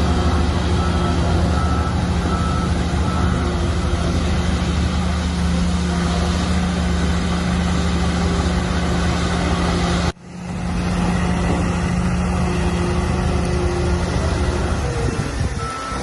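Heavy diesel earthmoving machinery running steadily under load, with a reversing alarm beeping in the first few seconds. The sound cuts out abruptly about ten seconds in and then picks up again.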